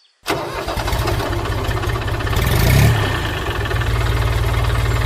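An engine running at idle, with a short rise in revs about two and a half seconds in. It starts abruptly.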